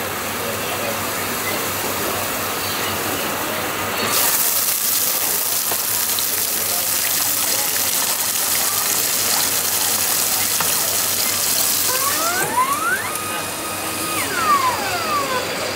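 Eggs and prawns sizzling hard in hot oil in a robot cooking machine's pan; the sizzle starts suddenly about four seconds in. Near the end the machine's electric motor whines up in pitch, holds, and winds back down.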